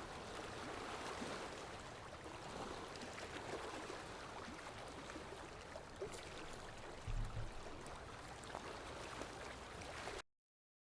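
Floodwater of a river in flash flood rushing in a steady roar, with a brief low thump about seven seconds in; the sound cuts off suddenly near the end.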